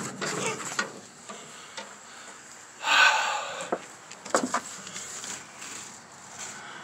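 Handling and movement noises while climbing into an old truck cab: scuffs, a short scraping rustle about three seconds in, then a few light knocks.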